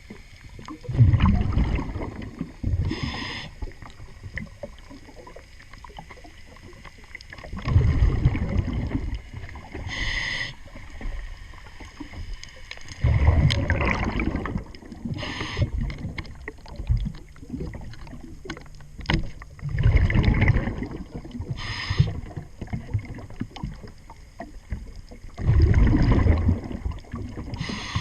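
Scuba diver breathing through a regulator underwater: a rush of exhaled bubbles about every six seconds, each followed by the short hiss of the regulator on the inhale.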